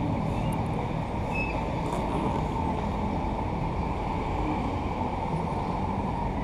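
Steady low background rumble, even in level throughout, with no distinct events.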